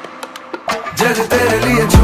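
Background music with a Latin/Afrobeat-style beat: a short break with only sparse percussion ticks, then the bass and full beat come back in about a second in.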